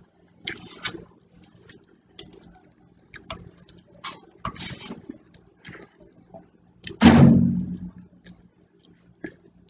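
Eating at the table: a metal fork clicking and scraping against a plate, with chewing sounds between the clicks. About seven seconds in comes one louder, fuller sound lasting about a second.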